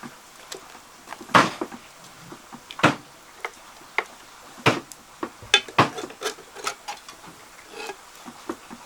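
A series of irregular sharp knocks and clatters of hard objects being handled, a dozen or so, spaced unevenly and varying in loudness.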